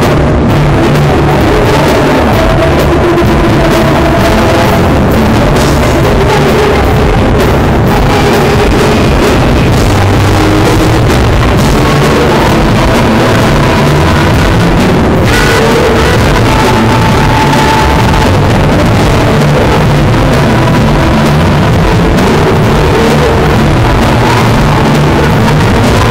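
Live band playing loud on stage, a woman singing over saxophone, congas and keyboards, with a steady beat and no let-up.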